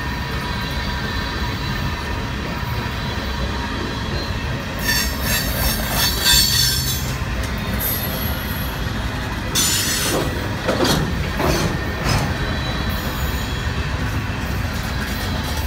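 Freight train cars rolling past on the track with a steady low rumble. About five seconds in, and again around ten seconds, come bursts of high-pitched wheel squeal and screeching.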